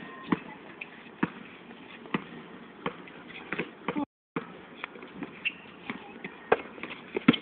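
Basketball bouncing on a hard outdoor court, sharp bounces about once a second, with faint voices; the sound cuts out briefly about four seconds in.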